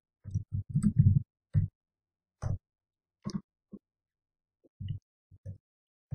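Computer keyboard being typed on: about a dozen short, dull keystroke taps in uneven runs, quickest in the first second and a half, with brief pauses around two seconds in and again near four seconds.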